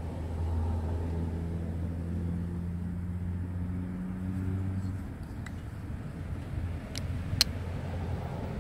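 A low, steady engine hum, like a passing vehicle, for the first five seconds or so, then fading. Near the end come a few sharp metallic clicks, the loudest just before the end, as the blade of a Shirogorov F95 folding knife is closed into its handle.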